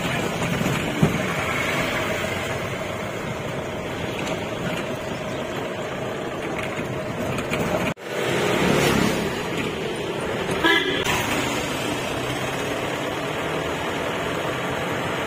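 Jeep running along a rough trail, with a steady mix of engine and road noise that breaks off abruptly about halfway and picks up again. A vehicle horn toots briefly about two-thirds of the way through.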